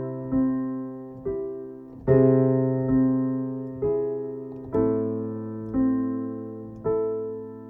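Piano playing a slow sequence of triad chords, a new chord or note struck about once a second and left to ring and fade, moving down to a lower bass about two thirds of the way through.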